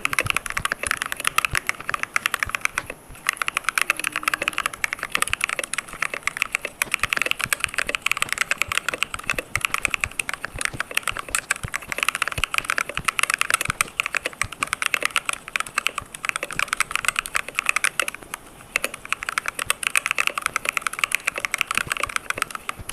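Fast, continuous typing on a computer keyboard with clicky keys, many keystrokes a second, pausing briefly about three seconds in and again near the end.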